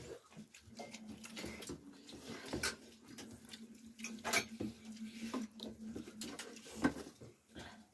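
Quiet kitchen sounds: scattered clinks and knocks of steel dishes and utensils, with a steady low hum through most of it that stops about six seconds in.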